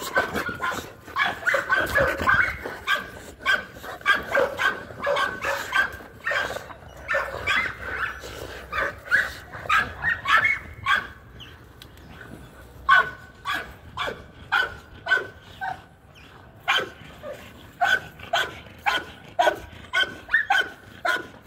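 Pit bull-type dogs barking and yipping over and over as they play tug-of-war with a rope toy, with short barks coming two or three a second and brief lulls between runs.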